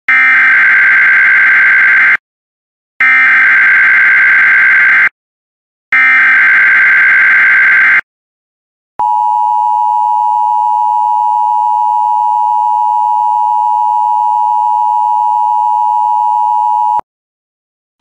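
Emergency Alert System alert opening: the SAME header, three identical bursts of screechy digital data about two seconds each with a short pause between them, then the long steady EAS attention signal tone held for about eight seconds. It signals that a tornado watch alert is about to be read.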